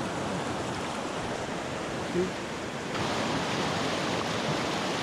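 Small mountain creek rushing, a steady wash of water noise that gets louder and brighter about three seconds in.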